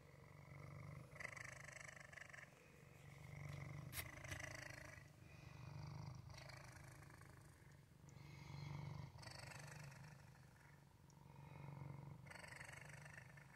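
Gray domestic cat purring softly and steadily, the purr swelling and fading with each breath about every two and a half seconds.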